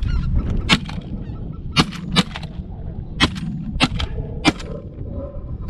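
A volley of about six shotgun shots fired at incoming geese, irregularly spaced over about four seconds, with goose honking in between.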